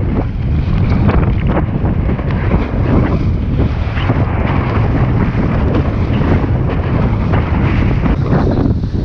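Strong wind buffeting the action-camera microphone in a steady, heavy low rumble, over water rushing and splashing along the hull of a Lightning sailing dinghy moving fast in strong wind.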